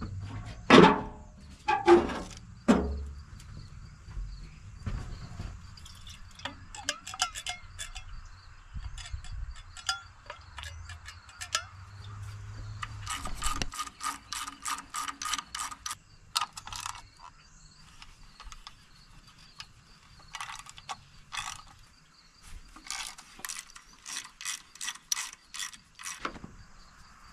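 Socket ratchet clicking in quick runs as it backs off the valve cover nuts on an old tractor engine, with a few loud metal clanks in the first few seconds.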